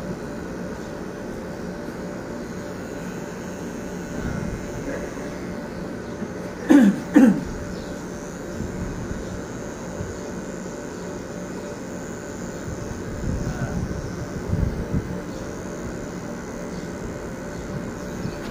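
Electric hair trimmer buzzing steadily while trimming around the ear. About seven seconds in, two short loud sounds with a falling pitch stand out over it.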